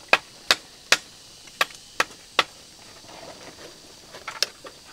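Sharp knocks of a hand tool striking a hard material on a building site: six evenly spaced strikes in the first two and a half seconds, then a short cluster of quicker, lighter knocks near the end.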